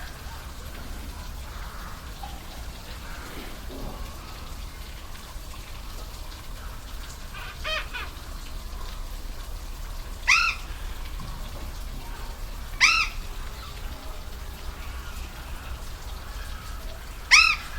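Steady rush of a waterfall. Over it, an animal gives three short, loud calls a few seconds apart, each rising and then falling in pitch, after a fainter call about eight seconds in.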